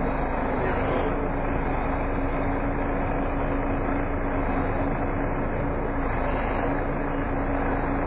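Volvo B7TL double-decker bus cruising at steady speed, heard from inside the passenger saloon. Steady road and engine noise runs under one constant whine from the cooling fan, the vacuum-cleaner-like 'hoover' sound these buses are known for.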